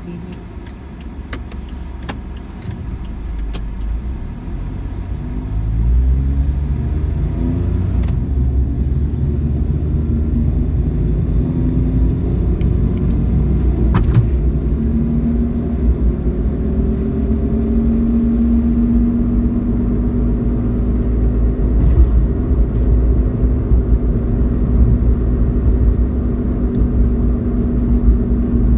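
Suzuki Wagon R (MH21S) on the road, speeding up over the first several seconds and then running steadily at speed. Under it is the low 'gō' drone from the rear that is typical of a worn rear hub bearing.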